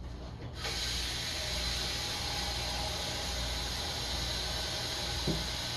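Steady hiss from a stockpot of soup heating on the stove, coming up toward a simmer. It starts about half a second in, with a faint tick near the end.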